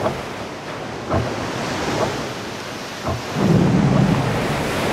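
Steady rush of wind and sea waves, with a louder low hum about three and a half seconds in.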